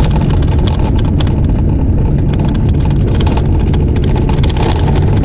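A small car heard from inside the cabin, driving on an unsealed gravel road: a steady low rumble of engine and tyres, with scattered light ticks.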